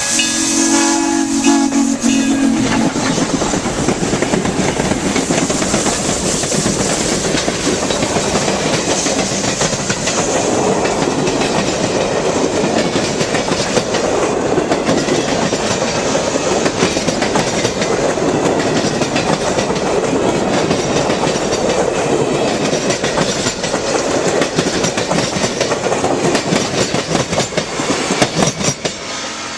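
A steam locomotive whistle sounds a chord for about two seconds, then a passing IAIS steam train rushes by with steady clickety-clack of wheels on rail joints. The noise drops off near the end.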